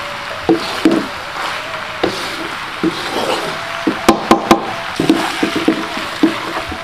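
Wooden spatula scraping and knocking against a wok as fried flat rice noodles are tossed, over a steady sizzle. Knocks come irregularly, with a quick run of four sharp ones about four seconds in.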